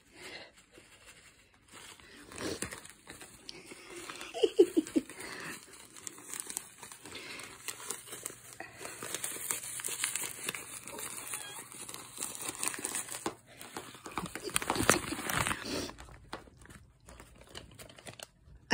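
Plastic catnip bag crinkling as it is handled and shaken out, on and off, with a louder stretch of crinkling near the end.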